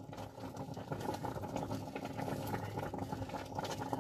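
Rice cooking in milk bubbling and simmering in a steel pot, a dense soft crackle of small pops, as a wooden spoon keeps stirring it in circles; the rice is thickening and turning creamy.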